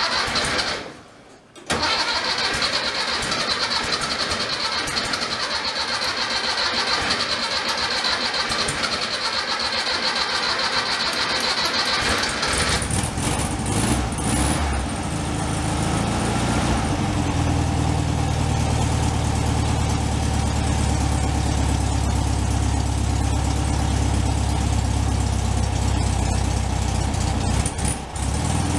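1964 VW Beetle's air-cooled 1500cc flat-four being cranked by its starter for about ten seconds, catching about thirteen seconds in with a few uneven revs, then settling into a steady idle.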